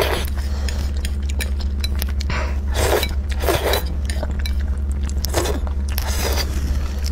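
Close-miked eating sounds: noodles in thick bean sauce chewed and slurped in a handful of short wet bursts, with small mouth clicks between them. A steady low electrical hum runs underneath.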